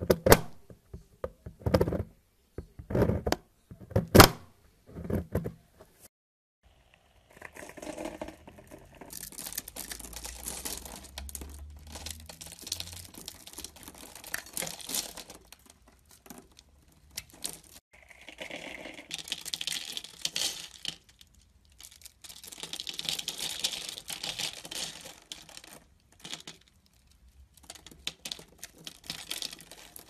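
A knife cutting bar soap: about five sharp crunching strikes as the blade presses through a soap block in the first six seconds. This is followed by a dense crackle in stretches as the blade scores a bar and small soap cubes crumble off.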